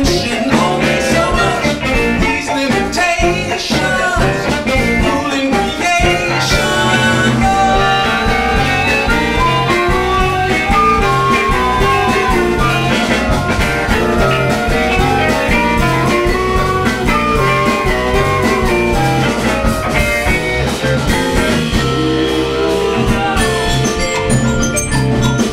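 Live band playing a blues-rock groove with drums, bass and guitar, a melody line sliding up and down over the middle of the passage.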